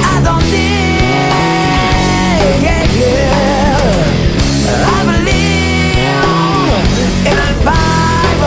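Rock band playing: electric guitars, bass and drums, loud and steady, with a lead line of long held notes that slide and bend with vibrato.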